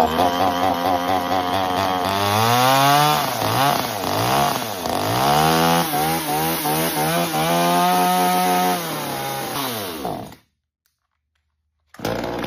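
Small two-stroke Veor chainsaw running on its first start out of the box, revved up and down several times, held at high speed, then dropping back and cutting off about ten seconds in.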